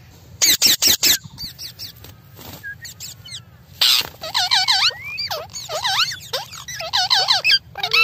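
Rose-ringed parakeets calling: four short harsh screeches about half a second in, then from about four seconds a run of quick, wavering, squeaky chatter.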